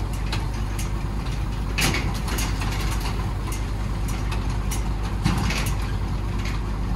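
An engine running steadily at idle with a low hum, with a couple of short knocks, one about two seconds in and one about five seconds in.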